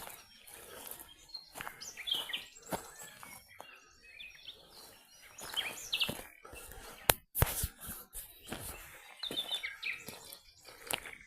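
Birds chirping in a forest in short scattered bursts of high chirps, with a few sharp clicks among them, the loudest a pair of clicks about seven seconds in.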